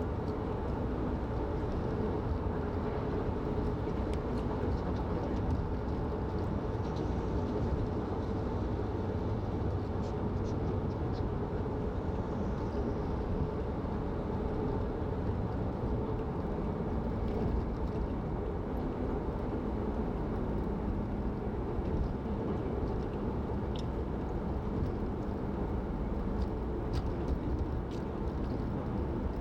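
Steady road and engine noise heard from inside a car cruising at highway speed, with a faint steady hum running through it.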